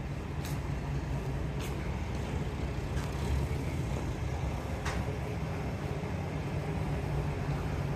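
Kanto Railway KiHa 532 diesel railcar idling at the platform, a steady low engine hum, with a few sharp clicks over it.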